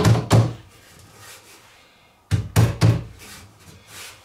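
Sharp knocks on a wooden workpiece: two quick knocks at the start, then three more about two seconds in, each about a third of a second apart.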